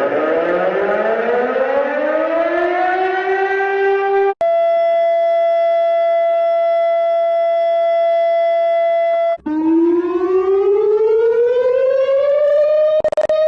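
Civil defense siren winding up in a rising pitch, then holding a steady tone for about five seconds before breaking off abruptly; a second wind-up starts straight after, with a short click near the end.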